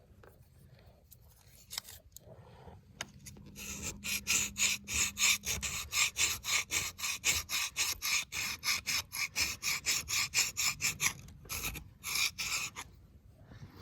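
Rapid back-and-forth scrubbing on a piston top of an old Rumely 6A engine, about four strokes a second, after a few seconds of quiet handling. It is the sound of grime and rust being rubbed off to bring up the piston's stamped size marking.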